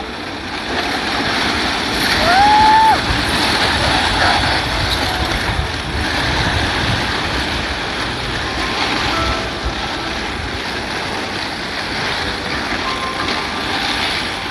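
Steady rumbling clatter of a long metal roller slide's rollers spinning under a rider going down. A short rising vocal cry about two seconds in.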